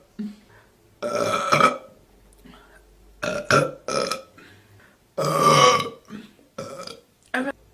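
A woman burping several times: two long, loud burps about a second in and about five seconds in, with shorter burps between them and near the end.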